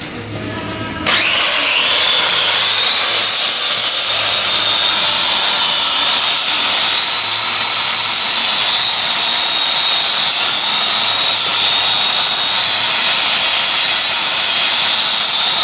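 A power tool spinning a wire wheel, scrubbing rust off a steel suspension spring perch. It starts about a second in with a short rising spin-up, then runs as a steady high whine mixed with scraping.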